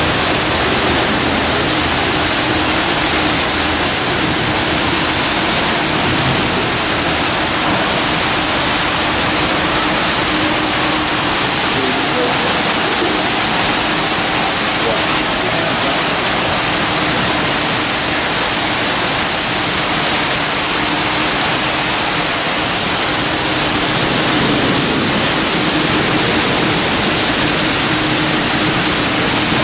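Steady rushing cabin noise inside a Boeing 737-800: airflow and its CFM56 engines heard from a window seat, with a faint low steady hum underneath.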